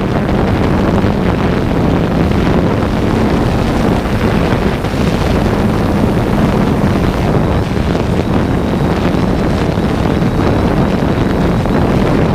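Strong, gusty wind buffeting the microphone, a loud continuous rumble and roar, with a steady low hum underneath.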